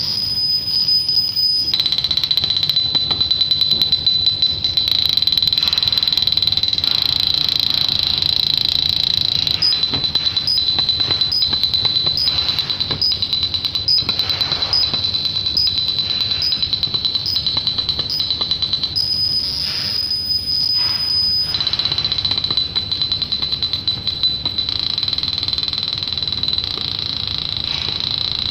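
CO2 laser marking machine running while it marks leather: a steady high-pitched whine over a low hum. The whine shifts pitch about two seconds in, again around nineteen seconds and at twenty-two seconds. In the middle stretch it carries evenly spaced ticks about twice a second.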